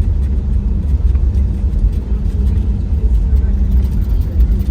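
Steady, loud, low rumble of a jet airliner's economy cabin in flight, with a constant hum beneath it.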